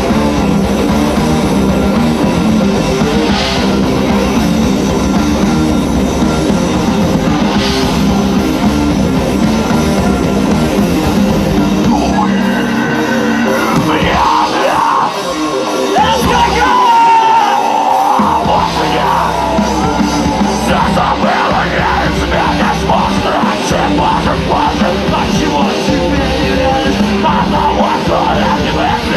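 Rock band playing live with yelled vocals over a full, heavy band sound. Around the middle the bass and drums drop out for several seconds, leaving higher lines on their own, then the full band comes back in.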